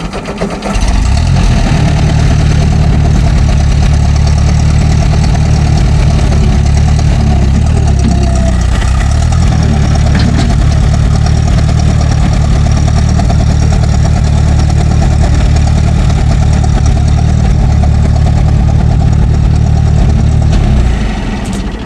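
Ford Golden Jubilee tractor's four-cylinder gasoline engine running loudly and steadily at close range. It comes up about a second in and drops away near the end.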